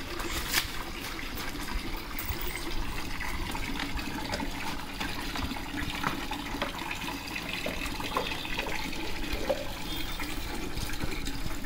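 Water running steadily, with a few light knocks and splashes as a dog handles a plastic mug in a water tub.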